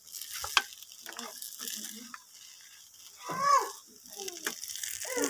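Metal spatula stirring and scraping thick semolina halwa in an aluminium pan, with a light sizzle of the ghee-roasted mixture over the charcoal fire and a sharp clink of spatula on pan about half a second in. A brief voice-like sound comes in a little past the middle.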